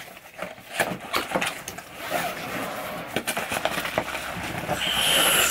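Cardboard shipping box being handled and opened: irregular taps and knocks against the cardboard, then rustling and scraping of the flaps, growing louder near the end.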